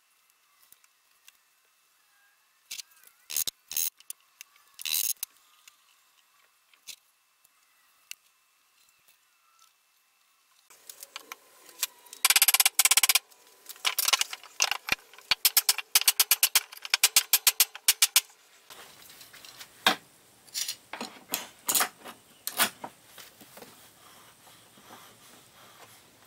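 Clamps and tools being handled during a wood glue-up: scattered clicks and knocks, then a dense run of quick, even clicks about four or five a second in the middle, and a few more knocks near the end.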